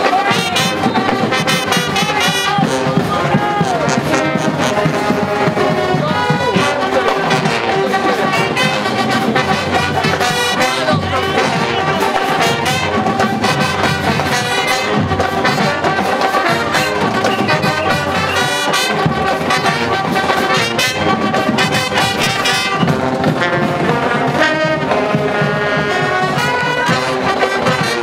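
A marching band's brass section, trombones and trumpets, playing a tune loudly and without a break.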